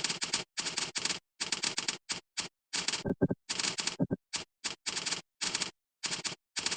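Fast typing on a computer keyboard: bursts of rapid clicking keystrokes, each under a second long, broken by brief silent gaps, with a couple of heavier, lower knocks about three and four seconds in.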